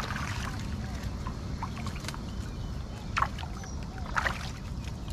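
Water splashing and sloshing as fish thrash inside a collapsible fish trap being handled in the shallows, over a steady low rumble. Sharp splashes come about two, three and four seconds in, the loudest about three seconds in.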